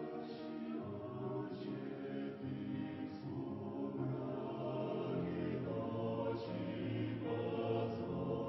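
A choir singing a hymn: sustained chords of many voices with the words faintly audible, swelling a little louder about halfway through.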